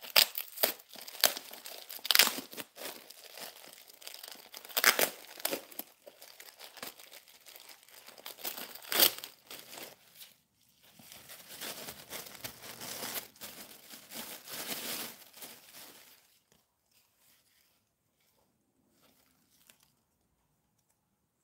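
A plastic mailer being torn open by hand and tissue paper crinkling as it is pulled off a small book. There are sharp rips in the first ten seconds, then softer crinkling for a few seconds more.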